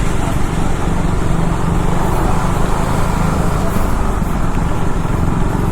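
KTM RC390's single-cylinder engine running at a steady cruise while riding, mixed with wind and road noise on the camera microphone.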